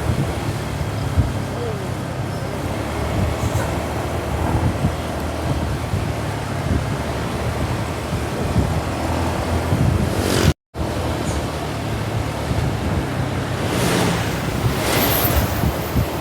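Roadside traffic noise: a vehicle engine running with a steady low hum under a hiss of road and wind noise. The sound drops out completely for a moment about ten seconds in.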